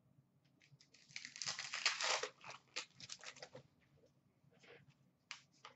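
Trading-card pack wrapper crinkling as it is torn open and handled, a dense burst of crackly rustling about a second in that lasts two to three seconds. It is followed by scattered light clicks and snaps of cards being handled.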